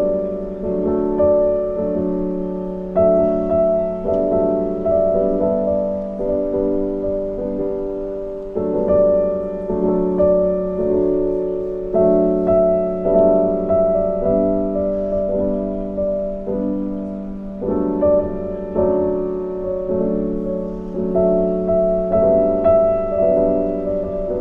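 Background piano music: a simple tune of struck notes that repeats in short phrases about every three seconds.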